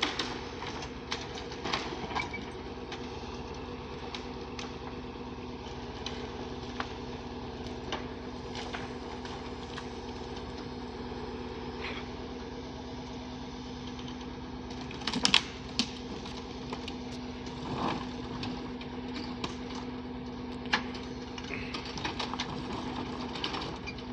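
An engine running at a steady speed, with scattered clanks and knocks over it; the loudest knocks come in a short cluster about fifteen seconds in.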